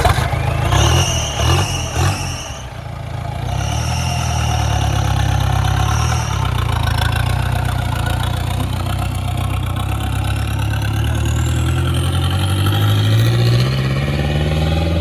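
Mahindra Bolero pickup's turbo-diesel engine running through an exhaust with the muffler and silencer removed. A few uneven revs in the first two seconds, then a steady loud run with a faint high whine, the revs climbing near the end before dropping away.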